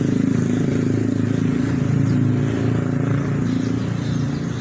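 A motor engine running steadily at a low, even pitch with a fast pulsing beat, holding its level throughout.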